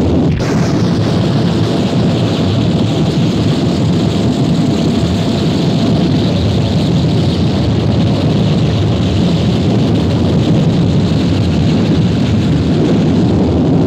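Harsh noise music: a loud, dense wall of distorted noise, heaviest in the low end with a hissing layer above it, shifting abruptly about half a second in and then running on unbroken.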